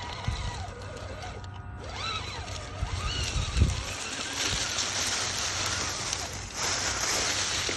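RC rock crawler's electric motor and gears whining as it is driven along a dirt trail. The whine rises and falls in pitch with the throttle, there is a thump about three and a half seconds in, and a gritty hiss of tyres over dirt builds in the second half.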